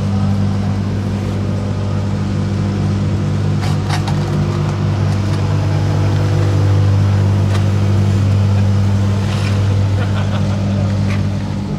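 Construction machine's engine running steadily at a constant low pitch, with a few faint knocks over it.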